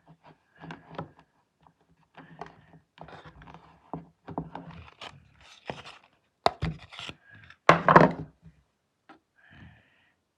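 Irregular knocks, thumps and scraping, with a cluster of sharp knocks loudest about eight seconds in.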